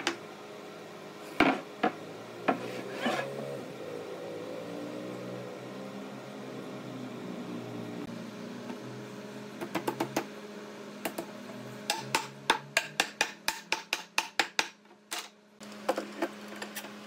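Sharp wooden knocks and taps as pine boards are fitted together on dowels and clamped: a few loud knocks in the first three seconds, then a quick run of a dozen or more taps in the second half that fade out, over a steady low hum.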